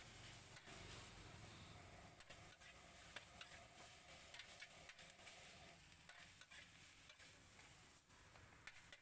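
Faint stir-frying of noodles: a spatula scraping and tapping irregularly on a wide flat pan, over a low sizzle.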